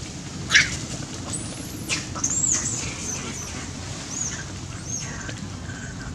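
Macaques squealing: a series of shrill, high-pitched arching squeals over a steady low background noise. The loudest is a sharp cry about half a second in, with a cluster of squeals around two seconds in and fainter ones after.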